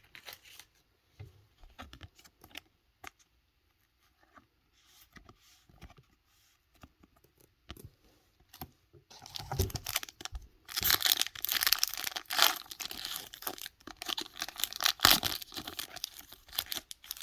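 Pokémon booster pack's foil wrapper being torn open and crinkled by hand, loud irregular crackling that starts about halfway through, after several seconds of faint clicks of cards being handled.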